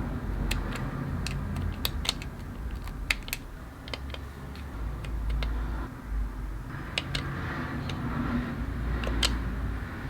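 Toy packaging being handled, giving irregular light clicks and taps, with a soft rustle from about seven to nine seconds in.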